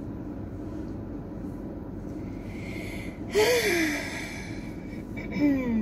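A loud breathy sigh with a falling voiced tone about three and a half seconds in, then a shorter falling hum near the end, over a steady low hum in a car's cabin.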